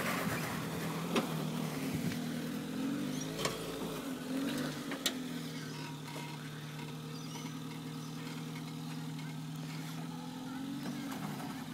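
Suzuki Sierra 4WD engine working at low revs as it crawls over rough, holed dirt, the revs rising and falling a little in the first half with a few sharp knocks, then holding steady before rising again near the end.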